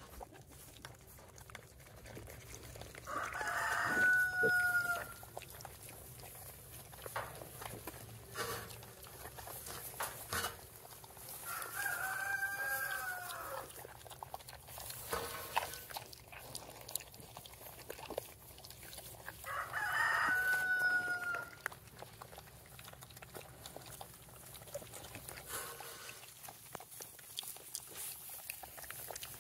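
Rooster crowing three times, about eight seconds apart, each crow about two seconds long with a held note that falls away at the end.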